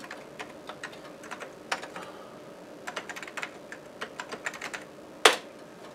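Typing on a computer keyboard: short runs of key clicks, with one louder keystroke about five seconds in.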